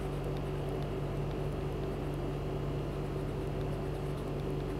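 Steady background hum with a faint hiss, holding two constant low tones, with a few faint ticks now and then.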